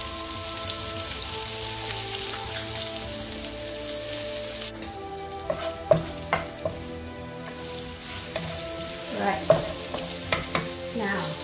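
Red chilli, garlic and ginger sizzling in hot oil in a non-stick wok while a wooden spatula stirs them. The sizzle drops away suddenly about halfway through, after which the spatula's scrapes and taps against the pan stand out.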